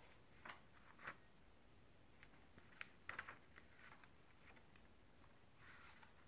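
Faint rustles and soft taps of a picture book's paper pages being turned by hand, a few short ones spread out and a longer soft rustle near the end.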